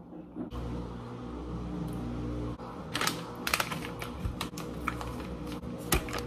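Plastic pouch of mixed nuts crinkling as it is handled, with a run of sharp crackles from about three seconds in, over a steady low hum.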